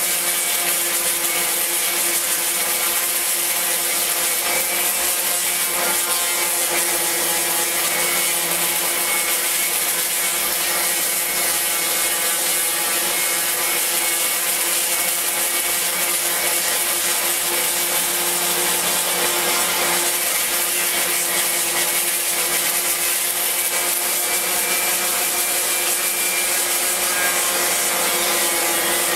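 Random orbital sander running steadily against a wooden speargun, a constant motor hum under the hiss of sandpaper on wood.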